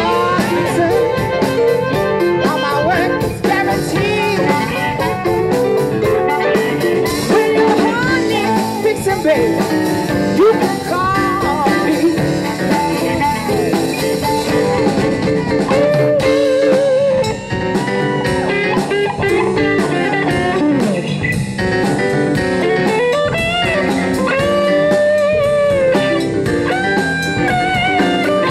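Live blues band playing an instrumental passage, with a guitar carrying the lead in bent, wavering notes over the band.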